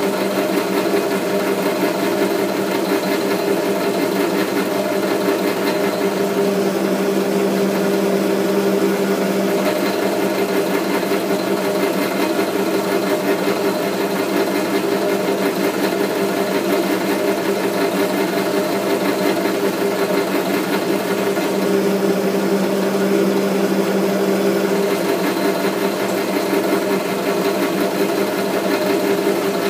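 South Bend metal lathe running steadily under power, a constant hum from its motor and gearing, while a single-point tool takes screw-cutting passes on a thread.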